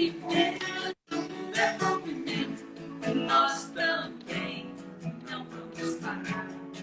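Strummed acoustic guitar with singing: a song performed live. The sound drops out completely for an instant about a second in.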